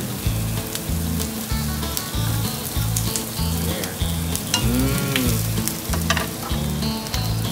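Sliced onions sizzling in a non-stick frying pan as they turn translucent, stirred with a spatula that clicks and scrapes against the pan. A low, evenly repeating bass pattern runs underneath.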